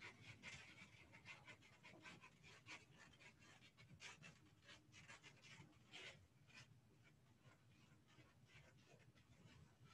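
Faint, quick scrubbing strokes of an eraser rubbing across a chalkboard, thinning out after about six and a half seconds.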